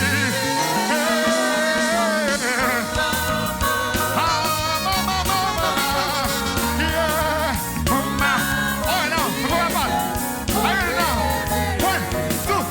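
Gospel music: a singer holding and bending notes without clear words over a band with bass and drums.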